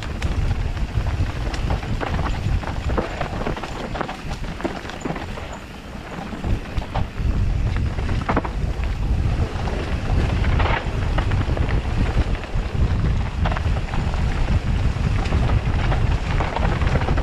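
Wind buffeting the microphone on a mountain-bike descent, with the bike clattering and knocking over rough trail. It eases briefly about six seconds in, then picks up again.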